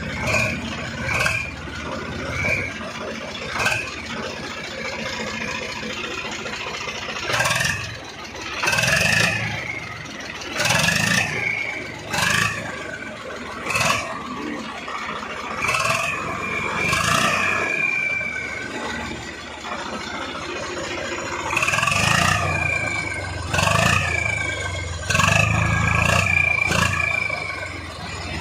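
Swaraj 855 tractor's three-cylinder diesel engine revved in short repeated blips, each rev sounding an exhaust-mounted turbo whistle that rises with the engine and falls away in pitch as the revs drop. There are about fifteen blips, bunched in groups with short pauses between.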